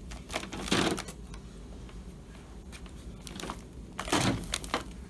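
Hands working at a laptop's keyboard and plastic casing to pry it loose: scattered light plastic clicks, with two louder scraping rustles about a second in and about four seconds in.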